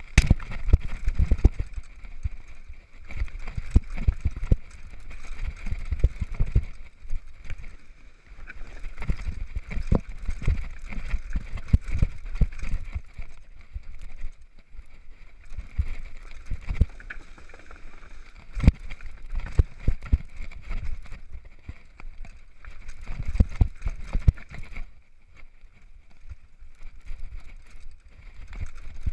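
Downhill mountain bike descending a dirt trail, heard from the rider's on-board GoPro: a constant rumble of tyres and wind, broken by many thumps and rattles as the bike's suspension and frame take bumps and roots. It eases off somewhat near the end.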